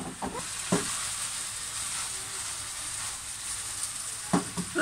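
Udon noodles and vegetables frying in a wok: a steady sizzling hiss. Brief voice sounds break in just after the start and again near the end.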